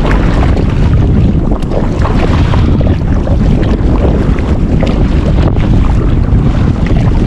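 Strong wind hitting the microphone in a loud, steady low rumble, over choppy sea water around the kayak.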